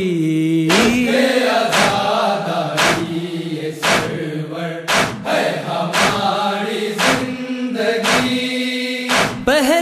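Noha (Shia lament) performance: a male chorus chanting in unison, held sustained notes, with a sharp percussive beat about once a second keeping time in the manner of matam chest-beating.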